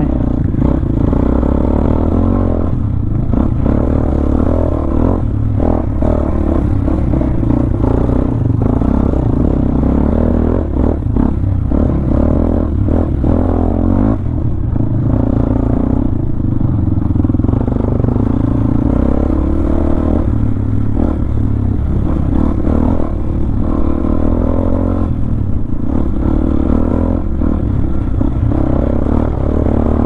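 Honda CB500X's parallel-twin engine running steadily under way, heard from on the bike, with frequent knocks and rattles as it rides over a rough dirt trail.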